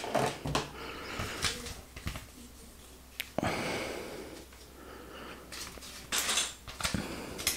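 Paper LEGO instruction booklets handled and their pages bent and flipped: a series of short rustles, with a sharp tap about three seconds in and a louder rustle about six seconds in.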